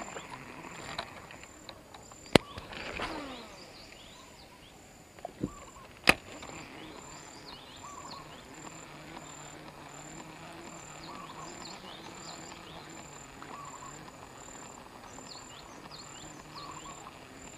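Rural outdoor ambience: an insect's high-pitched buzz pulsing steadily a couple of times a second, with scattered bird chirps. Two sharp clicks stand out, about two and a half and six seconds in, the first followed by a falling whir lasting about a second.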